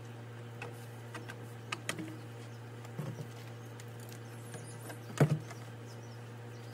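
Knocks and scrapes of schedule 40 PVC drain pipe and fittings being handled and pushed together during a dry fit: a few scattered knocks, the loudest about five seconds in, over a steady low hum.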